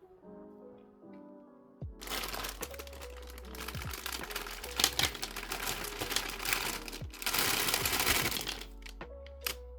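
Soft lo-fi piano music, joined about two seconds in by loud rustling and crackling of handled packaging, a dense stream of small clicks that peaks near the end and stops shortly before it.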